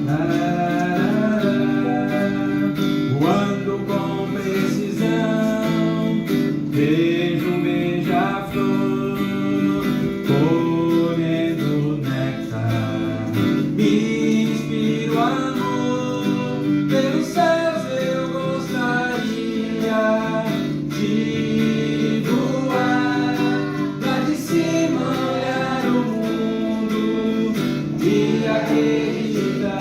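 Live music: a strummed acoustic guitar accompanying a song, with a melody line over it, playing steadily throughout.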